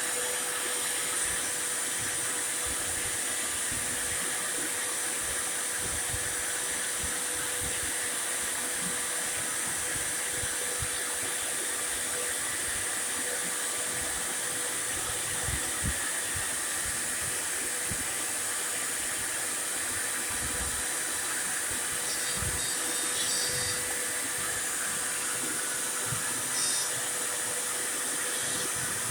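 CNC router spindle and its dust-extraction vacuum running steadily together while the machine carves: an even hiss with a high whine over it.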